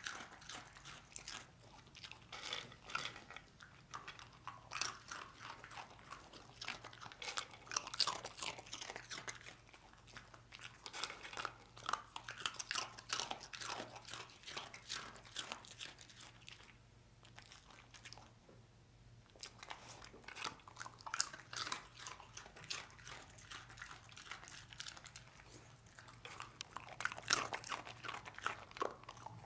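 A dog crunching and chewing dry, crisp spiral fried pasta snacks: rapid crunches and bites throughout, with a pause of a few seconds a little past the middle.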